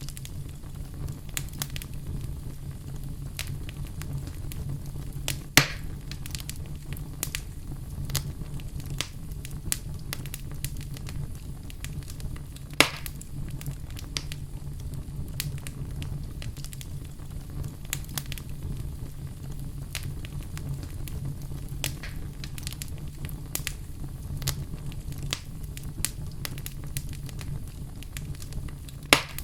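Wood fire in a fireplace crackling, with a steady low rumble under many small irregular crackles and three louder pops spread through.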